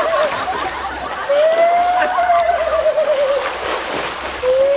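Water splashing and sloshing as a man thrashes in a pond and is hauled out. Over it a long wavering wail rises and falls: one ends just after the start, another runs about two seconds from a second in, and a third begins near the end.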